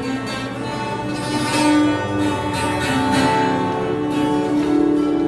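Acoustic guitar being strummed, the instrumental introduction of a song, with sustained notes over the chords.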